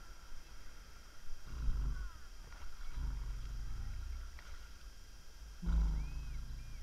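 Sea waves washing over a waterproof action camera held at the water surface: muffled low surges about a second and a half, three and five and a half seconds in, the last the loudest.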